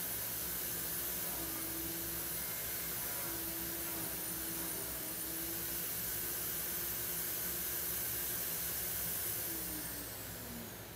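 An electric motor running with a steady noise and hum, then winding down and falling in pitch near the end.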